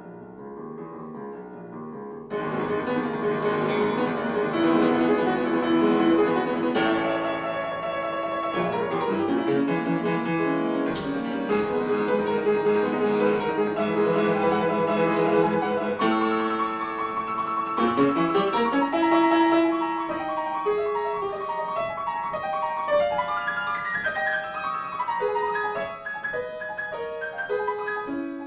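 Instrumental background music led by a keyboard instrument, playing a classical-style melody; soft for the first two seconds, then fuller and louder.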